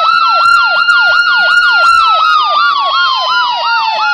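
Ambulance siren sound effect: a fast yelp of about four falling pitch sweeps a second over a long tone that slowly drops in pitch in the second half.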